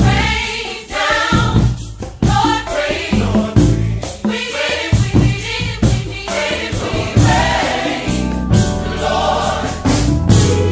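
Gospel choir singing over backing music with a steady drum beat.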